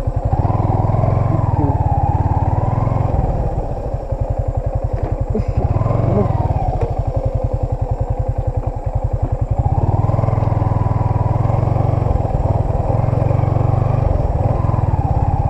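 Yamaha Sniper 155 underbone motorcycle's single-cylinder engine running under way, its revs rising and falling as the throttle is worked. It eases off about four seconds in and picks up again near ten seconds.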